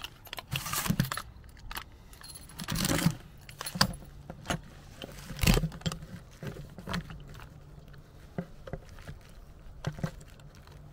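Packaging being handled: rustling plastic wrap and cardboard, with clicks and jingles of small metal parts as a packet of keys is handled, and one sharp knock about five and a half seconds in.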